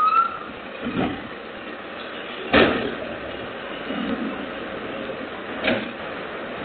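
Crane Carrier LET1 diesel garbage truck idling at the curb, with three sharp bangs, the loudest about two and a half seconds in, from trash cans being dumped into its hopper. Heard through a doorbell camera's thin-sounding microphone.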